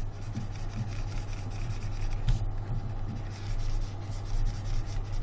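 Steady low hum with faint rubbing and scratching noises on top, the background of a desk microphone during a silent stretch of screen work.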